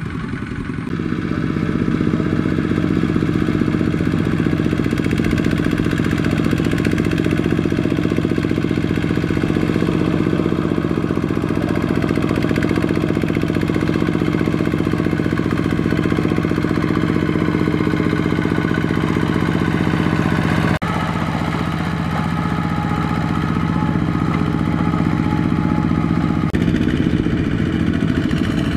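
Single-cylinder diesel engine of a two-wheel walking tractor running steadily under load as it hauls a loaded trailer through deep mud. It grows louder about a second in and changes abruptly about 21 seconds in.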